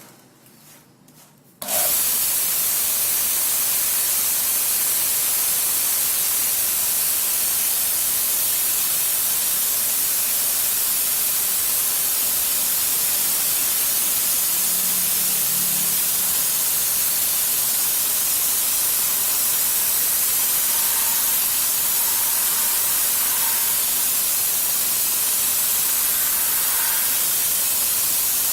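Homemade 1x36-inch belt grinder running, its abrasive belt giving a loud, steady hiss that starts abruptly about two seconds in.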